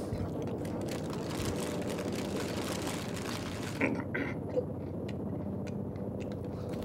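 Steady low hum of outdoor city traffic, with a couple of short clicks about four seconds in.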